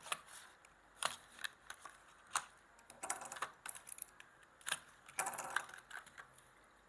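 Blister-pack packaging of a die-cast toy car being opened and handled: scattered sharp clicks and short plastic-and-cardboard crinkles.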